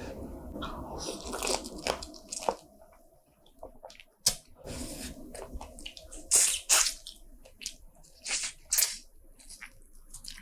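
Close-miked eating of spicy seafood: wet chewing and slurping, broken by a few loud, sharp crunches.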